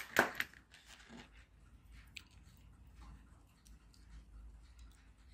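Handling noise of small plastic parts: clicks and light rustling as the blue plastic pieces of a cheap mains tester screwdriver are turned over in the fingers and a small pen screwdriver is put down, with a few sharper clicks in the first half-second.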